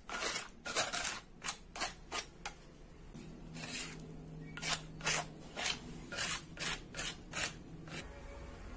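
A spoon scraping chili sambal together across a rough stone mortar, in a quick series of short gritty strokes about two a second, with a brief pause partway through.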